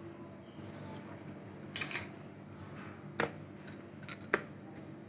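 A few short, light clicks and clinks of hands and a knife working bread dough on a worktop as it is divided into portions, over a faint steady hum.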